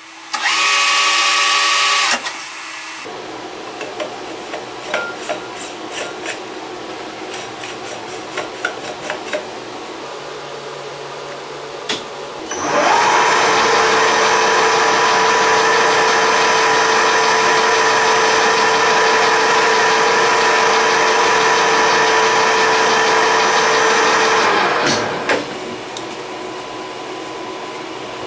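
Metal lathe running with a steady motor and gear whine while turning a large threaded tube. It runs briefly near the start, goes quieter with scattered light clicks, then runs loud for about twelve seconds from around thirteen seconds in before spinning down.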